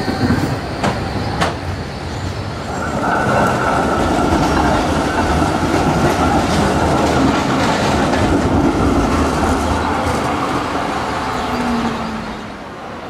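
Street trams passing close by on their rails. A few sharp clicks come in the first second and a half. From about three seconds in there is a steady rolling sound carrying a thin high tone, and it drops away near the end.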